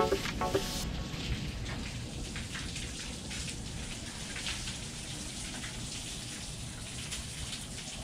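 Light rain pattering steadily on the boat's cover.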